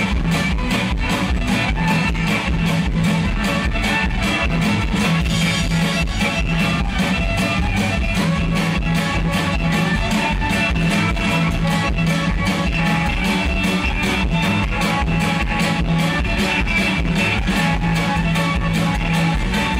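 Folk-rock band playing a fast traditional reel live, with fiddles, electric and acoustic guitars and a drum kit keeping a steady, driving beat.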